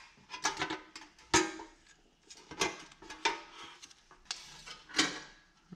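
Metal clinks and knocks from a steel quarter-window motor and regulator assembly being handled and lifted on a workbench: about five separate sharp knocks, the loudest about a second and a half in.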